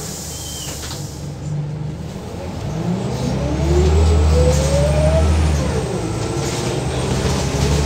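Scania L94UB bus's diesel engine idling low, then pulling away: the engine note rises steadily and grows louder for about two and a half seconds, drops at a gear change a little past the middle, then starts rising again.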